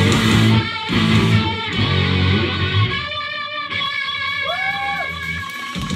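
Live rock band playing loud distorted electric guitars and drums; about halfway through the drums drop out and the guitars ring on in long held notes that bend up and down, then cut off near the end as the song closes.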